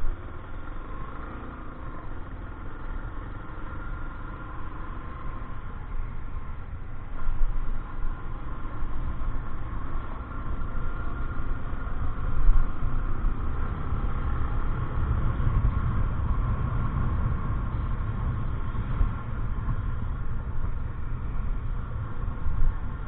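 A motor vehicle's engine running on the move, a steady low rumble of engine and road noise with a few brief louder moments.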